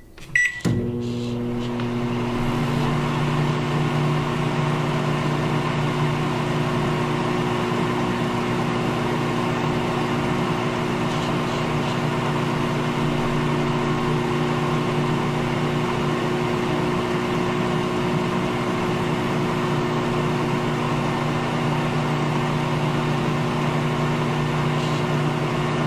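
Microwave oven running with a steady hum, starting just under a second in right after a keypad beep.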